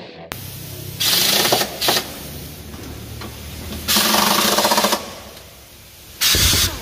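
Pneumatic impact wrench rattling in four short bursts as it runs bolts on the underside of a car on a lift, with quieter workshop noise between the bursts.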